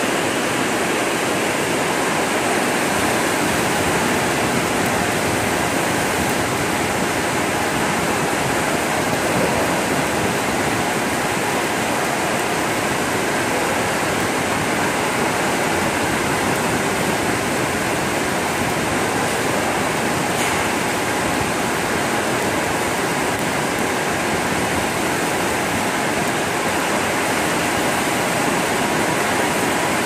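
Steady rush of water spraying inside a stainless-steel washing machine for 5-gallon water bottles, running without a break.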